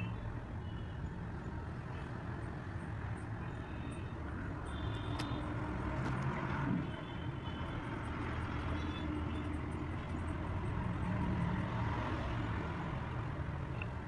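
Steady low background hum and rumble, with a few faint, brief high tones.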